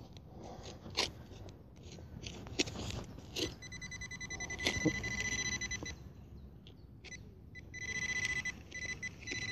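Handheld metal-detector pinpointer probed into the soil of a dig hole, giving a few knocks and scrapes against the earth. It then sounds a fast, high-pitched pulsing beep, about 3.5 s in and again near the end, signalling that metal is right at its tip.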